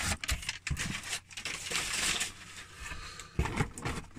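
Crumpled brown kraft packing paper crinkling and rustling as it is pulled out of a cardboard box, with a few light knocks.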